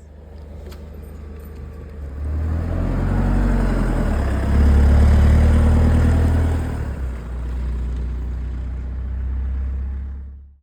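A motor vehicle's engine running, getting louder about two seconds in and again about halfway through, then easing back, with a steady low hum under it.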